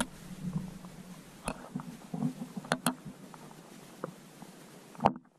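Muffled underwater sound picked up by a GoPro in its waterproof housing hanging on a rope: scattered clicks and knocks over a low rumble. A louder knock comes about five seconds in, and then the sound cuts off suddenly.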